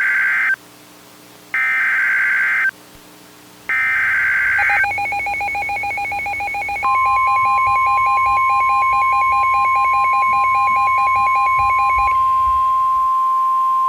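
Emergency Alert System header: three bursts of SAME data tones, each about a second long with a short gap between them. Then an alert signal: a pulsing, warbling tone, joined about seven seconds in by the steady NOAA Weather Radio 1050 Hz warning alarm. The pulsing tone drops out near twelve seconds and the steady alarm tone carries on.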